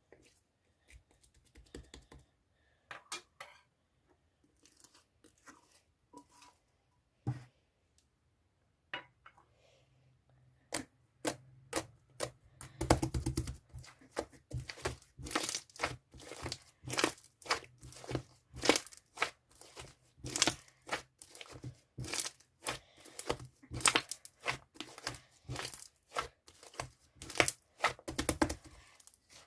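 Thick, chewy slime being squeezed and stretched by hand, giving sticky crackling pops. The pops are sparse and soft at first, then come quickly and louder from about a third of the way in.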